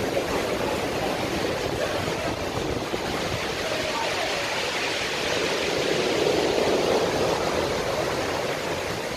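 Steady rushing of water echoing in a rocky cave, swelling a little about six seconds in.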